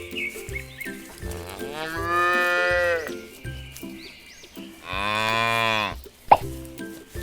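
Two cow moos, each about a second long, the second higher and brighter, over light background music. A short sharp blip follows near the end.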